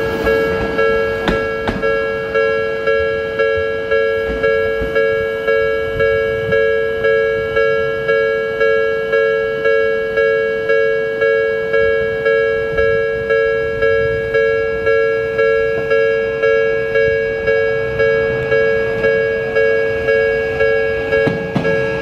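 Japanese railway level-crossing warning bell ringing without a break, a ringing electronic ding that fades after each strike, about one and a half strikes a second. Near the end a train's rising motor whine joins it.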